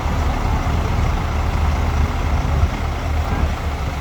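Heavy earthmoving machine's diesel engine running steadily with a deep, even rumble.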